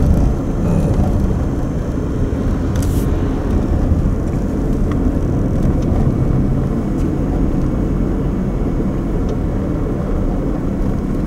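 Steady road and engine rumble heard from inside a moving car.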